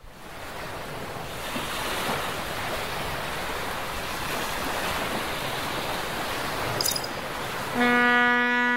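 Sea waves breaking and surf washing, a steady rushing. Near the end a loud, steady horn-like tone with many overtones comes in and holds for about a second.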